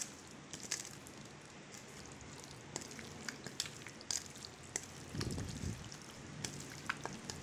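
Raw beef pieces being squished and turned by hand in a wet marinade of spices, yogurt and oil in a steel bowl: faint, scattered wet squelches and small clicks, with a soft low thud about five seconds in.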